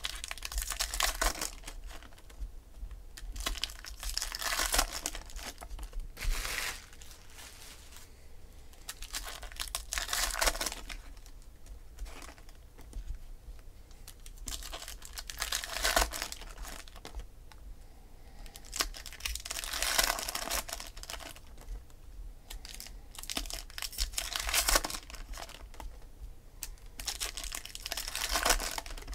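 Foil Topps Chrome card-pack wrappers crinkling and tearing as packs are opened, in about eight bursts a few seconds apart, with cards being flipped through in between.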